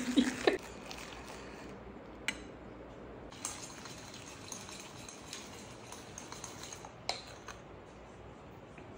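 A spoon clinking and scraping against a cup as a coffee mixture is stirred: scattered light clinks, with a few sharper ones about two, three and a half and seven seconds in.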